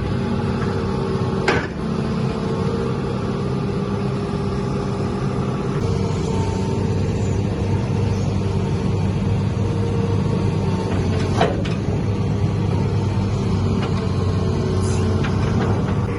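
Excavator engine running steadily, with two sharp knocks, one early and one about two-thirds through.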